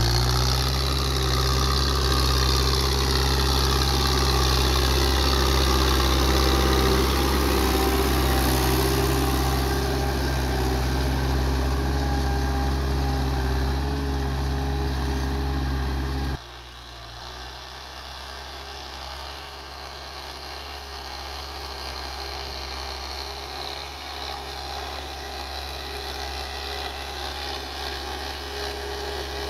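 Belarus tractor's diesel engine running steadily under load while pulling a tine cultivator through the soil. Loud and close at first, it drops suddenly to a fainter level about sixteen seconds in, then grows slowly louder again.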